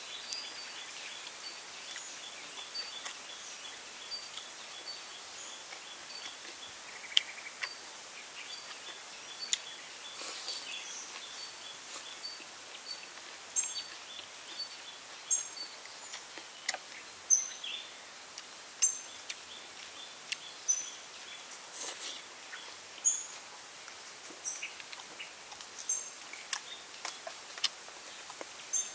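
Outdoor forest ambience of birds chirping. A repeated high chirp runs through the first half, and short high calls come through the second half. Scattered sharp clicks and taps come from eating off a plate with a spoon and chopsticks.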